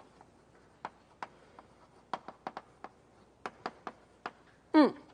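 Chalk tapping and clicking on a blackboard while drawing: about a dozen sharp ticks in irregular clusters. A brief voice sound near the end.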